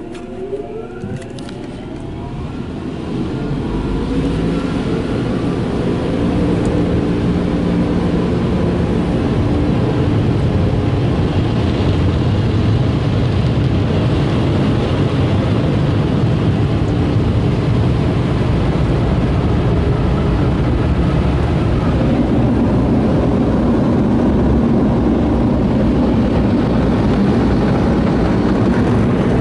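Car wash air-cannon blower dryers spinning up, their whine rising in pitch in the first seconds and the level building over about four seconds, then blowing steadily as a loud rush of air over the car, heard from inside the car.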